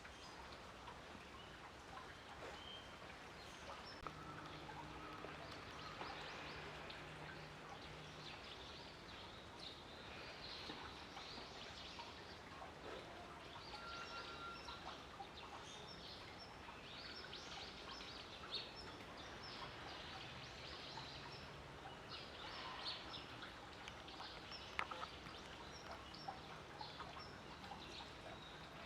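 Faint outdoor ambience with small birds chirping in short, scattered calls, and a low steady hum twice.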